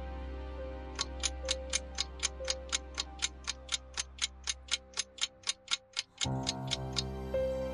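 Countdown timer sound effect: a clock ticking about four times a second, starting about a second in and stopping shortly before the end, over soft background music that fades under the ticks and swells back near the end.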